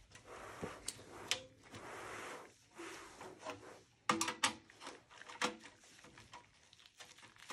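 Gloved hands handling and turning the steel chassis of a Dell Optiplex 7080 small-form-factor PC: rustling and scraping, then several sharp metal clicks and knocks, loudest about four seconds in.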